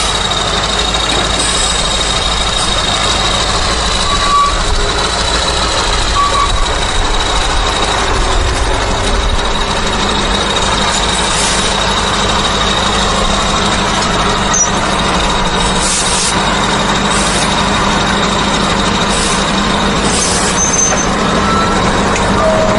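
Truck running, with steady engine and road noise. A thin high whine runs through most of it and stops about twenty seconds in, and there are a few brief hissy bursts.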